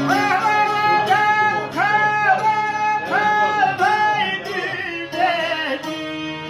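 A song: a voice sings a run of held, sliding notes, then wavering ornamented ones about four seconds in, over plucked and bowed string accompaniment.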